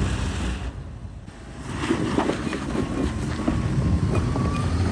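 Off-road SUV working slowly over a rough trail: a low engine rumble with repeated knocks and clatters from about two seconds in.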